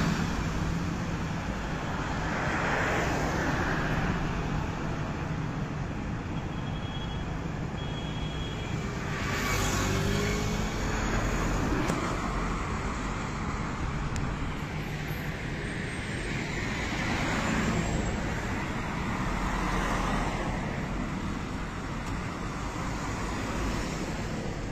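Road traffic: steady street noise with cars passing by, swelling and fading every few seconds.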